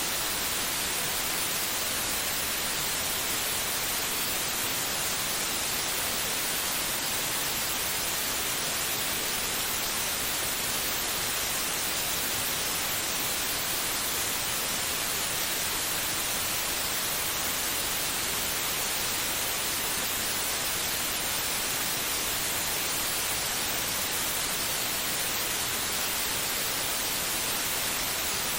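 Steady white noise: an even, unbroken hiss, brighter in the treble, with no pulse or change, played to calm a baby to sleep.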